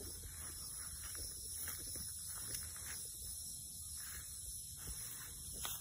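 Faint, soft rustling of footsteps over dry leaf litter, under a steady high hiss.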